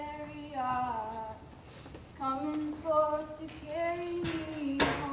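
A woman's voice singing drawn-out, wordless notes in short phrases with brief pauses between them. A short sharp noise cuts across the singing near the end.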